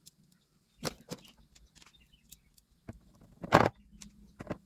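A few sharp clicks and knocks from handling a plastic induction-cooker casing and its screws during reassembly, the loudest about three and a half seconds in.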